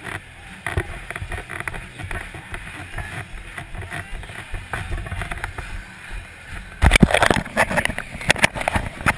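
Wind rumble and knocking on a helmet-mounted GoPro Hero 2 as its wearer jogs onto a football field. About seven seconds in, loud rubbing and knocking as a hand handles the camera.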